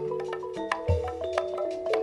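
Gamelan music: a quick run of struck, ringing metallophone notes, with deep low notes coming in about halfway through.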